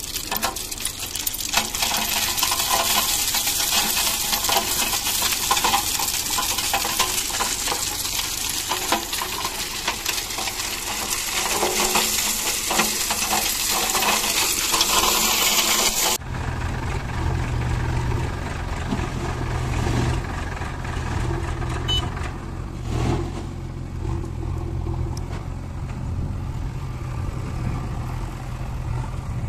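Crushed ballast stone pouring and clattering out of a tipping tractor trolley, a dense rattle of stones. About halfway through it cuts off suddenly and a diesel engine running steadily at low revs takes over.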